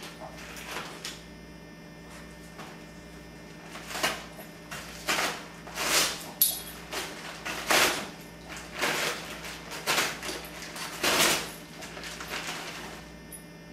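Wrapping paper crinkling and tearing in a string of short bursts as a Boston Terrier roots and tugs at a Christmas present, starting about four seconds in and stopping shortly before the end, over a steady low electrical hum.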